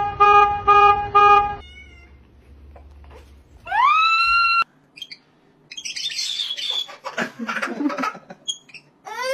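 A vehicle horn beeping about four times in quick, even succession, then a single loud tone that glides upward and cuts off, followed by scattered high-pitched chirps and squeals.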